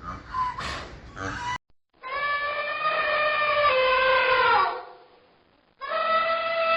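Animal calls: a few short pitched calls that stop abruptly, then two long drawn-out calls, each held steady and then dropping in pitch at its end.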